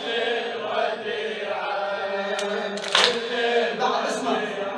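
Mourners chanting a latmiyya refrain together, many voices held on long sustained notes.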